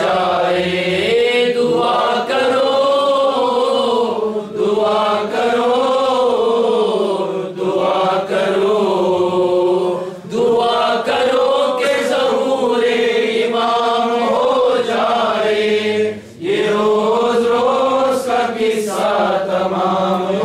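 A man chanting an Urdu noha, a Shia lament for Imam Husain, in long, drawn-out, wavering phrases with a few short breaks for breath.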